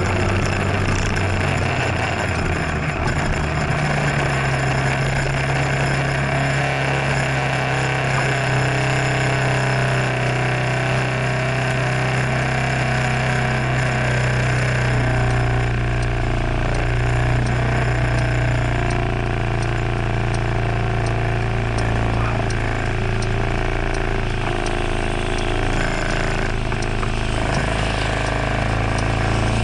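Scooter engine easing off over the first few seconds, then idling steadily while stopped. From about halfway, light ticks run over it.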